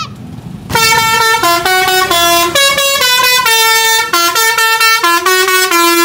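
Indonesian coach's Basuri musical air horn ('telolet') playing a quick melody of many short stepped notes. It starts under a second in.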